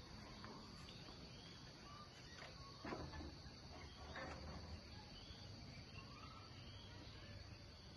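Faint outdoor ambience: a steady high insect drone with scattered distant bird chirps, and a soft knock about three seconds in.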